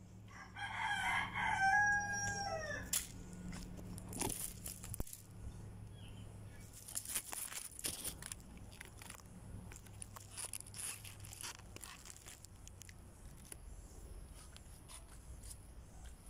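A rooster crows once, a long call that falls in pitch at its end. After it come scattered clicks and crackling rustles.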